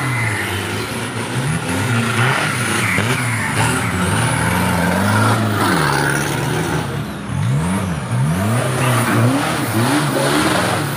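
Off-road diesel pickup truck engine revving hard again and again, its pitch rising and falling every second or so, in quicker swells about eight seconds in.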